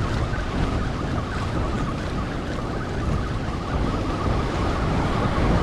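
Wind rumbling on the microphone over waves washing against the jetty rocks, a steady unbroken noise heaviest in the low end.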